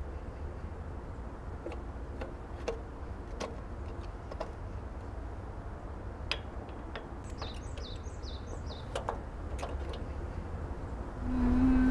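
Scattered light metallic clicks and taps from hands working on a walk-behind power tiller whose engine is not running, over a steady low rumble. Birds chirp in short bursts about two-thirds of the way through. Near the end the sound gets louder and a steady low hum-like tone comes in.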